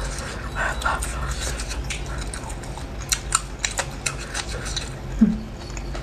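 Close-miked chewing of a grilled sausage: soft wet mouth sounds, with a quick run of sharp crunchy clicks about three seconds in and a brief low hum near the end.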